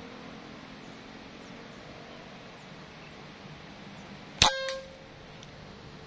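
A single air rifle shot about four and a half seconds in: a sharp crack followed by a brief metallic ring.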